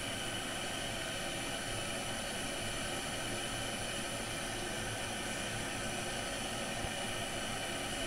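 Green Chef 1.8-litre electric kettle heating water and green tea leaves, giving a steady, even noise as the water starts to come to the boil.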